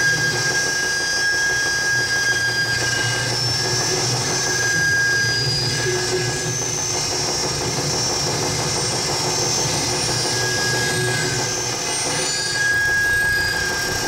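Live electronic noise performance through a PA: a dense, steady drone of noise over a low hum, with several thin high-pitched tones held and fading in and out.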